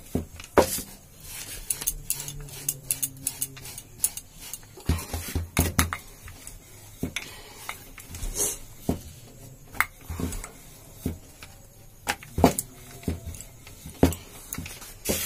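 Wooden rolling pin rolling out dough on a round wooden board: irregular light clacks and knocks as pin and board tap together, a few each second.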